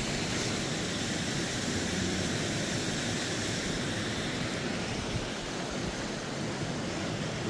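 Running creek water: a steady, unbroken rush.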